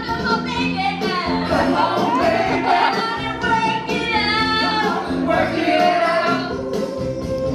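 Karaoke: voices singing a pop song over a loud backing track, with the sung lines wavering in pitch above a repeating low accompaniment.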